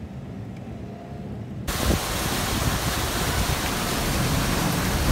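Low, steady engine and road rumble inside a moving passenger van, then about a second and a half in a sudden switch to the loud, even splashing of a fountain's water jets falling into its basin.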